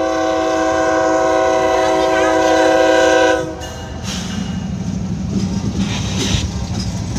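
Diesel locomotive air horn sounding one long chord, cutting off about three and a half seconds in. The locomotive's diesel engine follows with a low steady drone.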